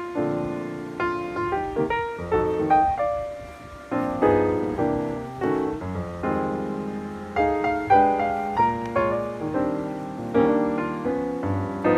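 Background piano music: a melody over chords, with notes struck and fading several times a second.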